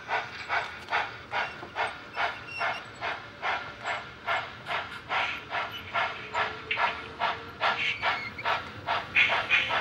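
Sound-equipped model steam locomotive chuffing steadily at a slow pace, about two and a half chuffs a second, with hiss between beats; the chuffs grow louder near the end.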